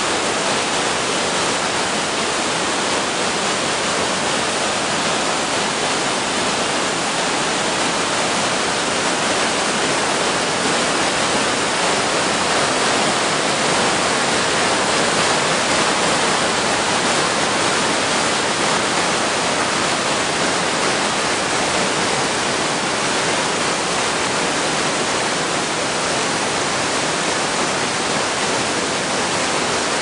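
Rain-swollen mountain stream rushing as white water through a narrow rock channel: a loud, steady rush with no let-up.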